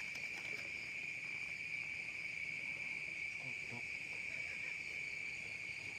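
Night insects singing in a steady, unbroken high-pitched chorus.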